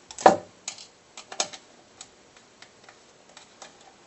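Clicks and taps of an M3 hex driver and small screws being worked on a plywood plate. There is one sharp knock about a quarter second in, a few more clicks around a second in, then scattered lighter ticks.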